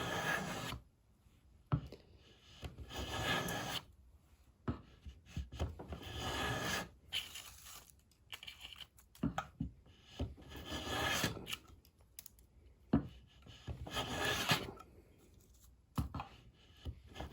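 A No. 4 hand plane shaving cherry in about six separate strokes, each a scraping hiss of a second or so as the iron cuts a shaving, several starting with a short knock as the plane meets the wood.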